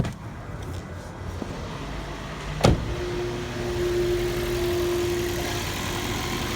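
A Toyota Prius air conditioning system starting up. There is a click at the start and a sharp thump a little under three seconds in. A steady whine follows for a couple of seconds over a rising rush of blower air and machine noise. The compressor is running on a system left with only refrigerant vapour, which the low-pressure switch does not stop.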